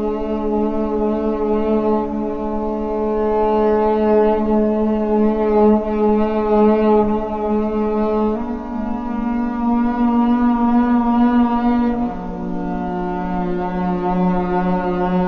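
Slow background music of long, sustained chords held for several seconds each, with a chord change about eight seconds in and another about twelve seconds in.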